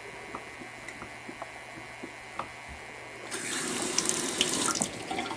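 A few faint clicks, then about two-thirds of the way in a bathroom sink faucet is turned on. Water runs into the basin through the freshly cleaned and refitted aerator for a second or two, then eases off.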